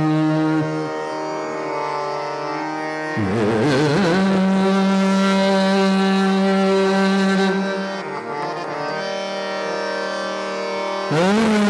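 Hindustani classical vocal over a steadily plucked tanpura drone. A male voice holds long notes: one ends under a second in, then an ornamented wavering phrase about three seconds in settles into a long held note. The voice drops out near eight seconds, leaving the drone, and glides up into a new held note near the end.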